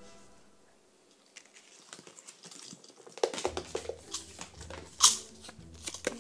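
Small plastic surprise capsule being handled and worked open by hand: scattered light clicks and crinkling of a folded paper insert, with a sharp click about five seconds in.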